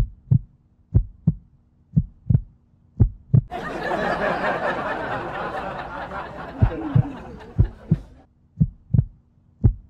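Heartbeat sound effect: a double thump about once a second over a faint steady hum, laid on as suspense. A rushing noise swells in about three and a half seconds in and fades out near the end.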